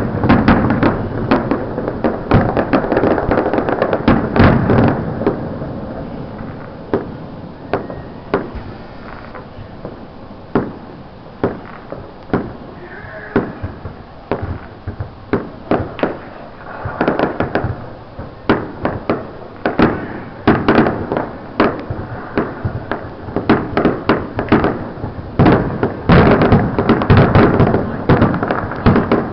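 Aerial fireworks bursting: dense runs of bangs and crackling in the first few seconds and again near the end, with single sharp reports spaced out in between.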